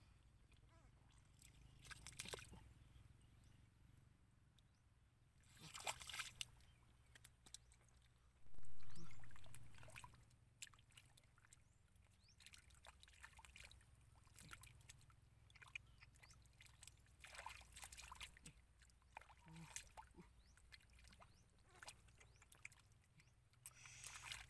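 Intermittent sloshing and squelching of shallow muddy water as hands grope through the mud to catch fish, with a dull bump about nine seconds in, the loudest sound.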